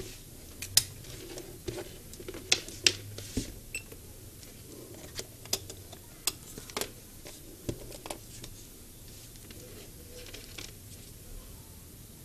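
Scattered sharp plastic clicks and taps from a handheld digital multimeter and its test probes being handled, about a dozen over the first eight seconds, over a faint low hum.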